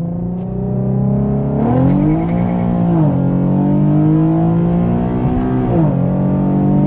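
Infiniti Q50S engine at full throttle in a roll-on pull from about 20 mph, the revs climbing and then dropping sharply with upshifts of the automatic at about three seconds in and again near six seconds. A sudden flare in revs about two seconds in goes with the rear tires spinning.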